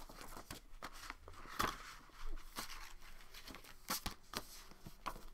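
Paper rustling and crinkling as a hardback book and its paper wrapping are handled, with scattered sharp taps and clicks, the loudest about a second and a half in and again around four seconds.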